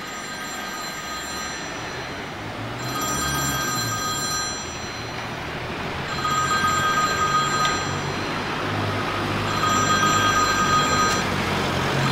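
Mobile phone ringtone ringing in repeated bursts of about a second and a half, roughly every three seconds, four times. Underneath it a motorcycle engine runs at low speed.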